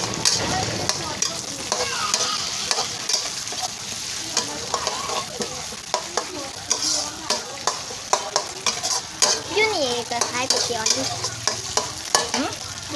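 Metal spatula stirring and scraping against a steel wok while food fries in oil: a steady sizzle with irregular sharp clicks and scrapes of metal on metal.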